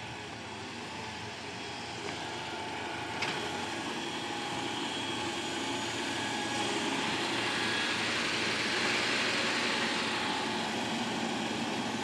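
Caterpillar motor grader's diesel engine running steadily while it grades, growing gradually louder, with a sharp click about three seconds in.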